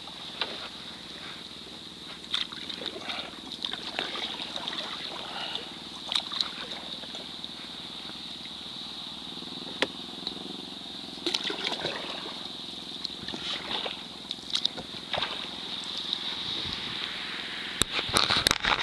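Water splashing and sloshing around a sea kayak as it is paddled, with scattered drips and small knocks. A flurry of sharp knocks near the end.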